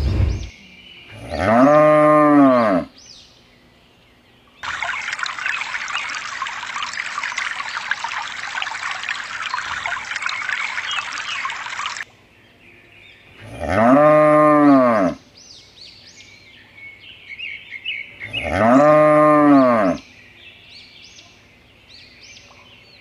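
A cow mooing three times, each moo a long call that rises and falls in pitch: once about a second in, then twice more near the end. Between the first and second moo, water pours steadily for about seven seconds and stops abruptly, with faint bird chirps in the background.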